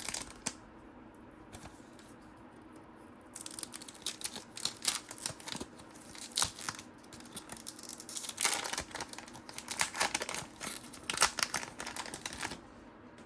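A trading card pack's wrapper being torn open and crinkled by hand, in irregular crackling bursts that start about three seconds in and stop shortly before the end.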